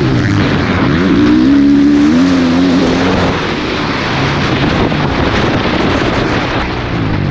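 Motocross bike engine under hard acceleration, heard from the rider's helmet: its pitch dips and then climbs about a second in, and the rest is mostly a broad rush of wind and engine noise at speed.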